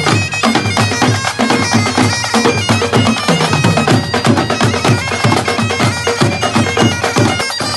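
Great Highland bagpipes playing a tune over their steady drones, with a pipe band's snare and tenor drums beating a fast, rapid rhythm along with them.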